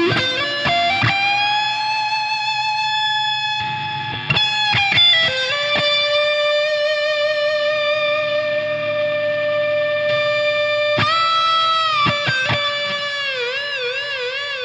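Electric guitar with humbucker pickups played through a high-gain sound, with no hum. It plays long sustained single notes, a string bend up and back down near the end, then wide vibrato as the note fades.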